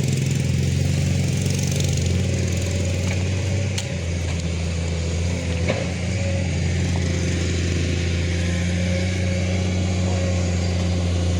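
Heavy diesel engine of an excavator running steadily, a low even drone with a slight dip in level about four seconds in.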